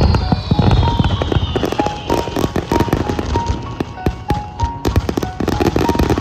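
Aerial fireworks shells bursting in quick succession with crackling, over background music. A high whistle glides down in pitch through the first two seconds.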